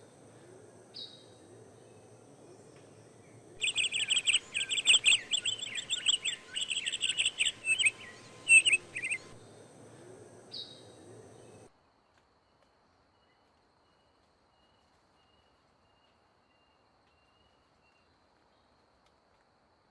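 A bird chirping: a single short chirp, then a rapid run of loud, high chirps lasting about six seconds, then one more short chirp. A steady background hiss cuts off abruptly about halfway through, leaving near silence.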